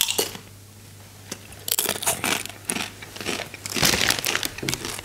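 Doritos tortilla chips crunching as they are bitten and chewed, with the chip bag crinkling as a hand reaches into it. The crunching comes in irregular bursts starting about a second and a half in.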